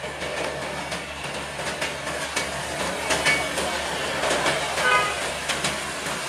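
Passenger train receding after passing, its wheels clattering and clicking over the rails, with road traffic such as motorcycles moving across the crossing. A short high beep sounds about five seconds in.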